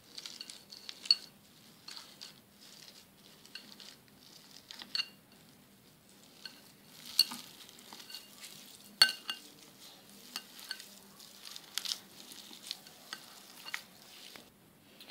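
Boiled potatoes being mashed by hand in a glass bowl: soft squishing with irregular sharp clicks as the hand knocks against the glass.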